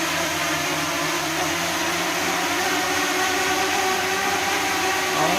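A DJI Mini 2 drone's propellers whirring steadily as it hovers against the airflow of two electric fans. The fans' motors and rushing air add to one continuous whir with a steady hum.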